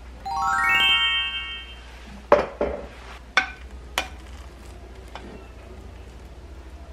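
A short rising chime glissando, bright bell-like notes climbing one after another, as an edited-in sound effect. Then four sharp clacks of a plastic rice paddle against a stainless steel pressure cooker pot as freshly cooked rice is stirred and fluffed.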